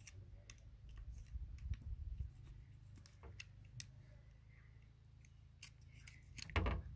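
Utility knife blade slicing raw chicken skin at the leg joint: faint scattered clicks and scratches, over a low rumble. A dull knock near the end.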